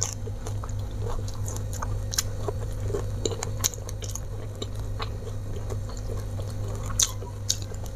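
Close-miked chewing of a mouthful of food, with scattered small clicks and snaps as a petai (stink bean) pod is split open by hand. A steady low hum runs underneath.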